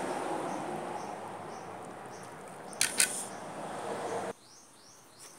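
A pan of kangkong and sardines cooking with a steady hiss. A metal utensil clinks twice against the pan about three seconds in, and the hiss cuts off suddenly a little over a second later.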